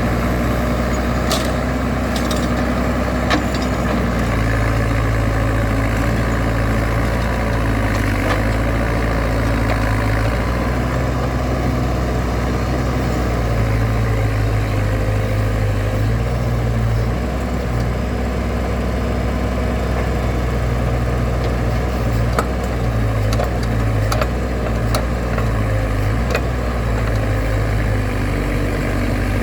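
Backhoe loader's diesel engine running steadily, its low hum swelling and easing now and then, with a few sharp clicks or knocks scattered through.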